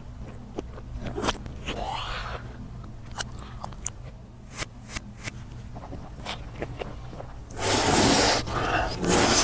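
Close-miked eating sounds: scattered small clicks and mouth sounds, then a louder noisy stretch of biting and crunching near the end.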